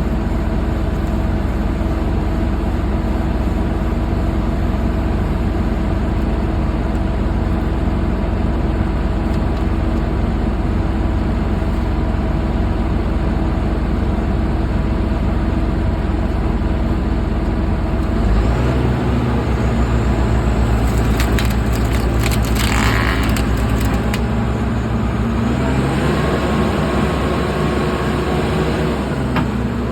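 Bulldozer's diesel engine running steadily. It speeds up about two-thirds of the way in, climbs again shortly after and drops back near the end. A burst of sharp cracks comes a few seconds after the first rise.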